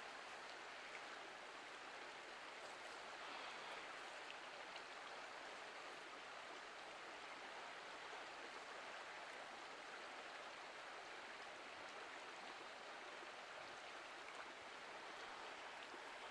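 Faint, steady rushing of a flowing river.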